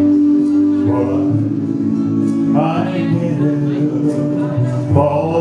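A man singing into a microphone over instrumental accompaniment, holding long notes.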